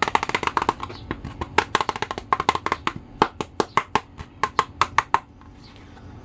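Percussive music: a quick run of sharp wood-block-like clicks and taps, falling into a regular pattern of paired hits, then stopping about five seconds in.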